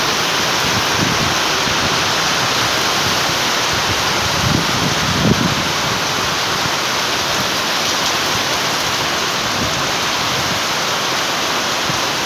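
Heavy monsoon rain pouring steadily, a loud, dense, even hiss, with a couple of soft low thumps about halfway through.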